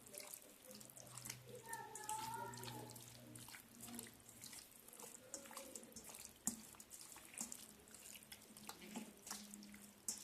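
Faint, irregular wet squelching and smacking of chicken pieces being mixed by hand with a curd and spice marinade.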